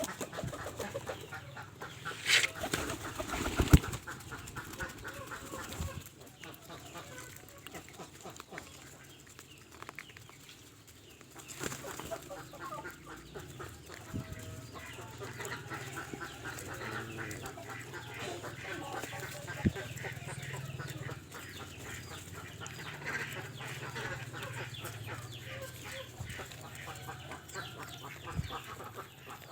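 Pigeons feeding, with wings flapping in flurries and low cooing. Two sharp knocks come in the first few seconds.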